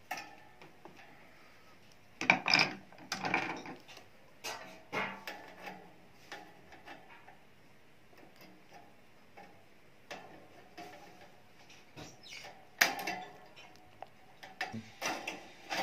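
Steel wire fan guard clicking and clinking as its retaining clips are pried open with pliers: scattered sharp metallic clicks and rattles, several close together about two to three seconds in and a sharp one near the end.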